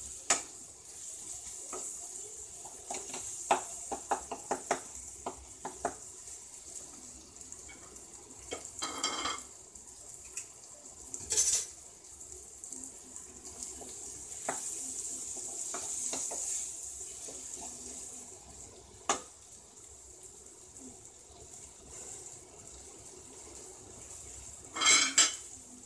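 Onion-tomato masala sizzling as it fries in a nonstick pan, with a wooden spatula scraping and tapping against the pan while it is stirred. Short clicks come throughout, and louder scrapes come about 9 and 11 seconds in and again near the end.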